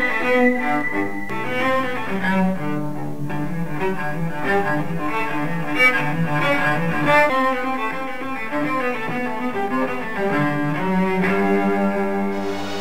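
Background music on bowed strings: held low notes with a slow melody above them, cello-like.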